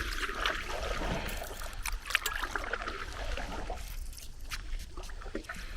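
Paddle strokes from a small paddled boat: the blade dipping and pulling through the water, with water trickling and dripping off it and small splashes.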